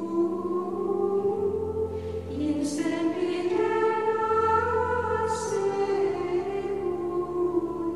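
Background music of slow singing, voices holding long notes in harmony, with two soft sibilant consonants a few seconds apart.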